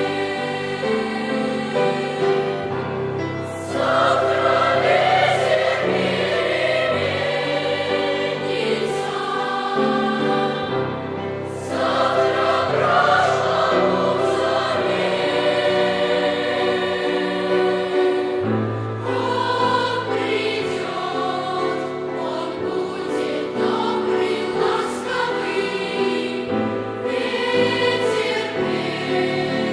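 A boys' choir singing a song, with several voice parts in harmony; the singing swells fuller from about four seconds and again from about twelve seconds in.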